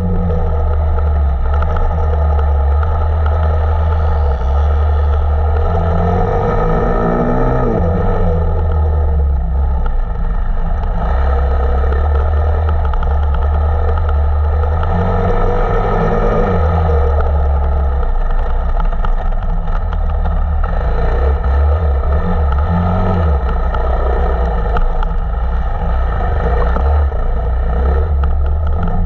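Single-cylinder four-stroke KTM 525 EXC enduro motorcycle engine running hard under load off-road, its pitch rising and falling as the throttle is opened and closed, with a steady deep rumble underneath.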